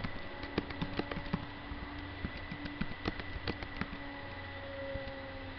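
Typing on a computer keyboard: irregular keystrokes, thick in the first four seconds and thinning out after, over a steady low hum.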